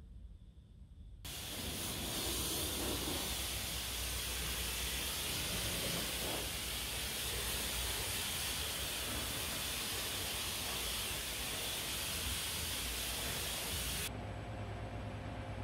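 High-pressure washer lance spraying water onto a car's bodywork: a steady, loud hiss that starts suddenly about a second in and cuts off shortly before the end.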